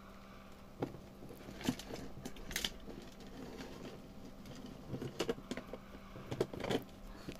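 Light clicks and rattles of a small toy chain and plastic pieces being handled and fitted onto a pink plastic L.O.L. Surprise! capsule, with several sharper clicks spread through.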